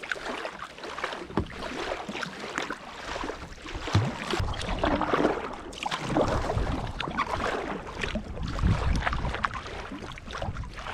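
Kayak paddle strokes, the blades splashing and dripping in the water as the kayak moves along, with wind buffeting the microphone at times.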